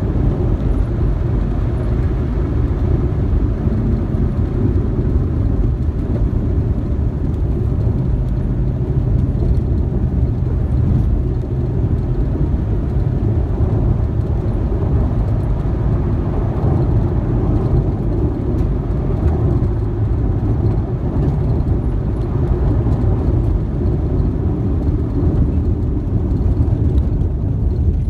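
A car driving along a dirt road: a steady low rumble of engine and tyres on the unpaved surface, with no sharp knocks or changes.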